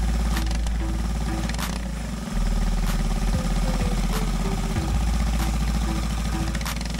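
Briggs & Stratton LO206 single-cylinder four-stroke kart engine running on a dyno during break-in, a steady low rumble with a rapid firing pulse. Its revs shift under the throttle, with a step in level a little over two seconds in.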